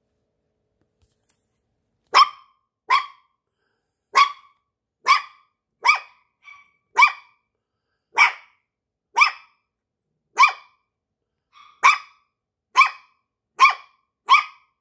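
Small puppy barking: short, sharp, high-pitched yaps at about one a second, starting about two seconds in, with a couple of softer yips among them.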